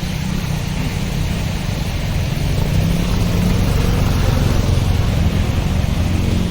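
Street traffic: motor vehicle engines running with a steady low rumble and a haze of road noise.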